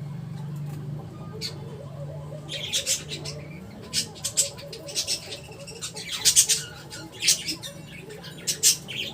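Small pets squawking and squeaking: short, shrill calls in quick clusters from about two and a half seconds in, over a steady low hum.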